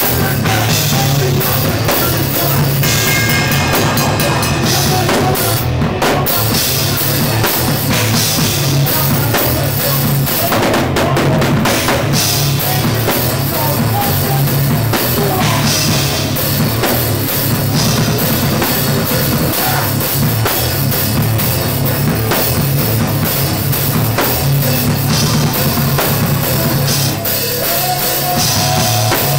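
Loud hardcore punk music with a full drum kit, playing without a break.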